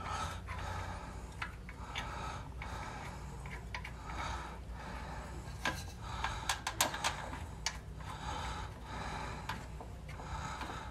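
Breathing of a mechanic working under a car, in soft swells about once a second. A few light metallic clicks cluster in the middle as the oil pump bolt is fitted by hand.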